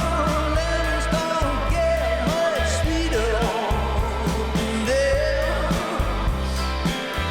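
Background pop-rock song with a steady beat and bass, and a held, gliding melodic vocal line without words.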